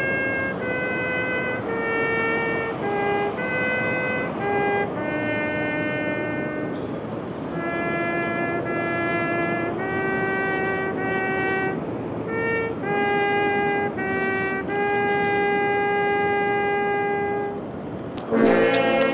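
A solo trumpet plays a slow melody, one held note after another, the longest held for nearly three seconds near the end. Just before the end, several instruments come in together, louder.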